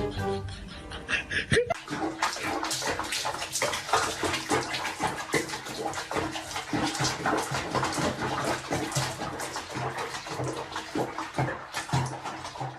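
Water splashing and sloshing, dense and continuous, starting about two seconds in after a short stretch of music.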